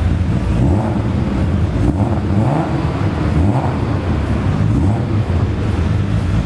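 A car engine running, mostly at a steady idle, with small rises and falls in pitch between about two and four seconds in.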